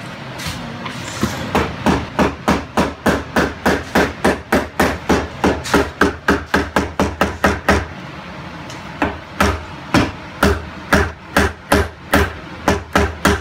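Mallet striking a wood chisel in quick, even blows, about three a second, chopping the waste out of a dado between saw kerfs in a wooden slab. The blows stop for about a second just past the middle, then carry on.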